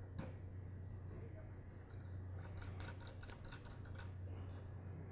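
Faint small clicks and ticks as crimped wire ring terminals and the plastic switch of a DeWalt DW718 miter saw are handled and fitted together, with a cluster of quick clicks in the middle, over a low steady hum.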